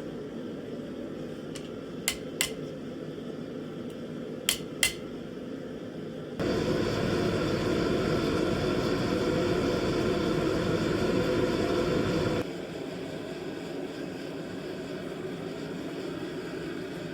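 Two pairs of sharp metallic taps, then a workshop machine that starts suddenly with a steady whir, runs about six seconds and cuts off, over a constant background hum.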